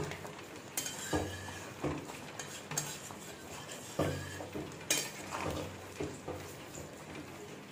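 Metal spatula stirring whole baby potatoes in thick curry in a metal pot, scraping and knocking against the pot's sides and bottom in irregular clinks and scrapes.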